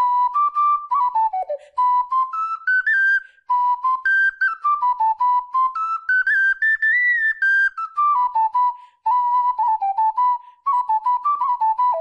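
Alto C double ocarina playing a melody, one clear flute-like note after another. The line climbs to its highest note about seven seconds in and then steps back down, with short breaks for breath about three and a half and nine seconds in.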